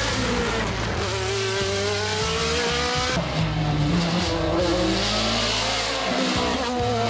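Sport-prototype hillclimb racing car accelerating hard uphill toward the camera. The engine pitch climbs, drops sharply on a gear change about three seconds in, then climbs again through the next gear.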